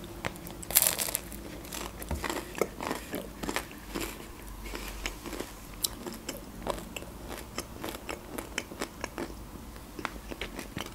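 A person biting into a slice of Turkish pide, with a loud crunch of the baked crust about a second in. Steady close-miked chewing follows, full of small crunches and mouth clicks.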